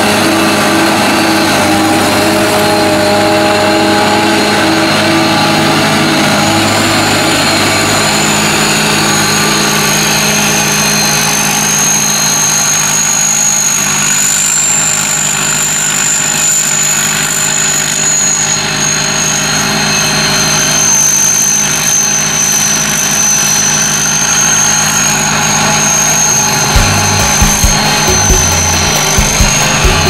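Sakpattana SS-200 mini combine harvester running steadily as it cuts and threshes rice, driven by its four-cylinder turbocharged engine, with a high, steady whine over the machinery noise. Low thumping sets in near the end.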